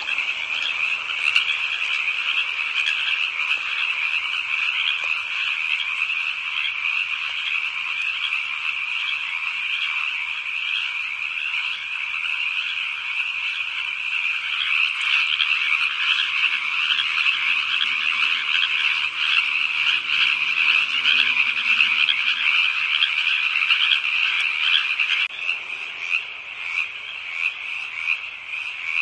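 A dense chorus of many frogs calling together in a steady, high-pitched trilling din. About 25 seconds in, the lower-pitched part of the chorus stops and the calling turns thinner and more pulsing.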